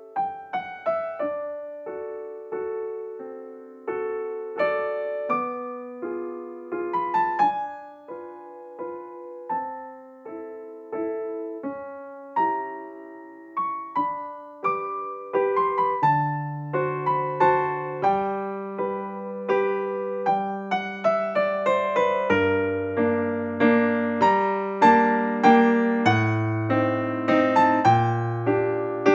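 Background piano music: a gentle melody played over chords, with a lower bass line coming in about halfway through.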